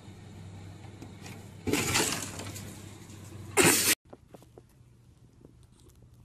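A sudden crash, like something falling and breaking, about a second and a half in, dying away over about a second, over a steady low hum. A second short, loud crash follows about two seconds later, then the sound cuts to faint scattered ticks.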